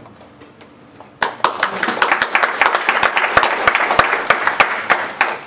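Audience applauding: the clapping begins about a second in and thins out near the end.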